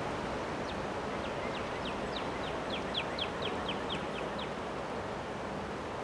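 Strong wind rushing steadily through bare trees, with a bird singing a quick series of short falling notes, about fourteen in three and a half seconds, starting just under a second in.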